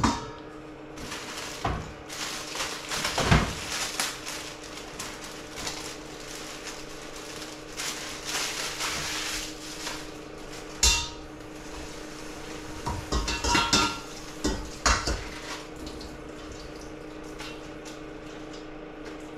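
Kitchenware clattering: pots, a bowl and utensils knocked and set down in a string of separate clanks, with stretches of running tap water as baby spinach is rinsed, over a steady low hum.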